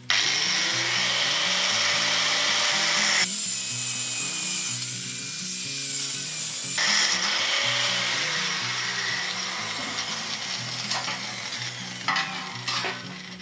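Handheld electric angle grinder biting into metal tubing, a loud continuous whine and rasp of the disc on steel. Its character shifts around 3 s in and again around 7 s as the disc works the tube. A few metal knocks come near the end as the rack is picked up.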